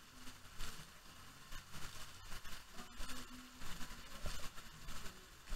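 Faint, steady wash of spraying and splashing water from a water-park play structure, with a few faint low sounds mixed in.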